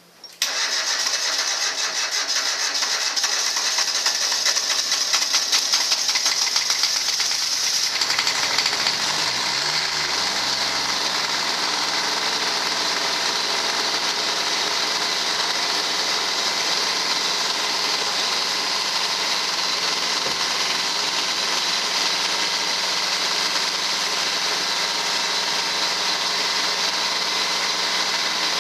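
1987 Ford LGT14D garden tractor's three-cylinder Japanese diesel engine cold-started after sitting all winter, glow plugs preheated: the starter cranks it for about eight seconds, then it catches, picks up speed over a couple of seconds and settles into steady running.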